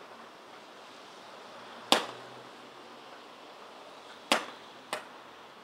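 Tiberius T9 CO2 paintball pistol firing three sharp shots: one about two seconds in, then two about half a second apart near the end, the last one weaker. These are the last shots on a nearly spent CO2 cartridge that is running cold.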